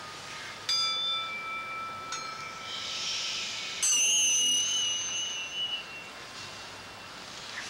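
Chime-like struck metal tones: three strikes, each ringing on and fading, the third, about four seconds in, the loudest, with a high wavering ring.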